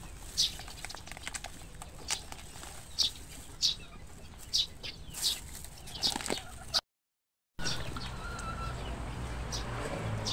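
Chicks peeping in short, high calls repeating every half second to a second. The sound cuts out completely for under a second about seven seconds in.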